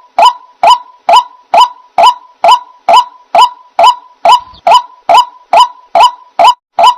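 White-breasted waterhen calling: a loud, monotonous honking note repeated evenly about twice a second.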